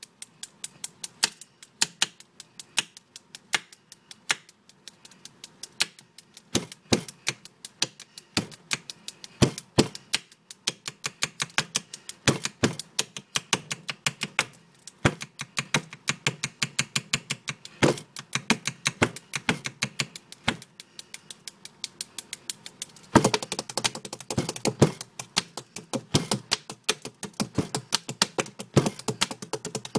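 Rapid, irregular tapping on a hard surface, played as an improvised beat, several taps a second. About 23 seconds in it gets louder and busier.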